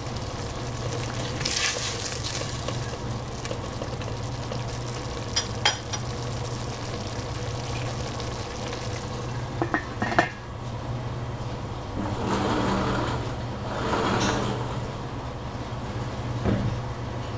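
Pan of mushrooms, zucchini and bean thread cooking on the stove: faint sizzling over a steady low hum, a few sharp knocks of pan or utensils around the middle, and two swells of hissing near the end.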